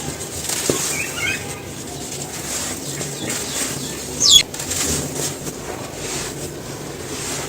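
Dry cement being crumbled, a continuous gritty crackling. A brief wavering bird-like chirp comes about a second in, and a sharp high sweeping call just past the middle is the loudest sound.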